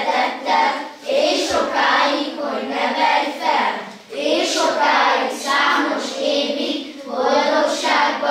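Children's choir singing together in unison, in phrases of about three seconds with a short breath between them.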